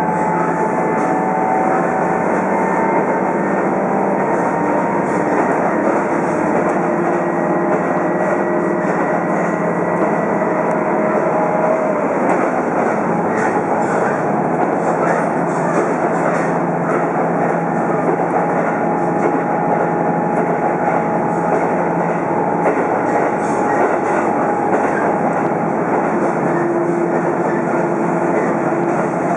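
Diesel railcar running at speed, heard from inside the passenger cabin: a steady rumble of engine and wheels on the rails, with faint held whining tones.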